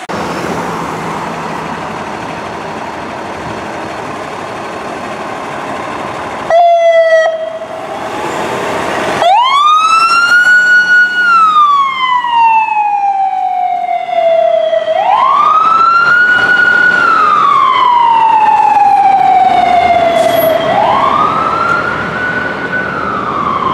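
Fire department emergency vehicle's electronic siren on a slow wail, rising, holding and falling in three long cycles about six seconds apart. It comes after a short, very loud warbling blast about six and a half seconds in, with steady traffic noise before that.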